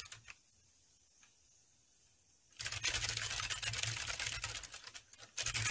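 Dense, rapid clicking over a low hum. It stops just after the start, then returns about two and a half seconds in, with a brief break near the end.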